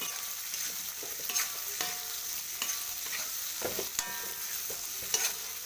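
Beef trimmings and red chilies sizzling in oil in a metal wok, with a metal spatula scraping and clinking against the pan a few times as they are stirred.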